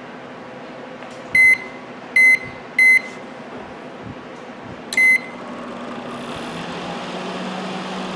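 Whirlpool microwave oven's keypad beeping as it is set: three quick beeps about a second and a half in, another about five seconds in. Then the oven starts running with a steady low hum, its burnt transformer wire newly reconnected.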